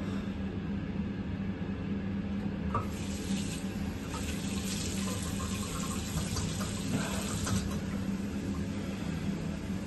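Bathroom tap running into a sink for about five seconds, starting about three seconds in, while face-washing with the hands. A steady low hum lies underneath throughout.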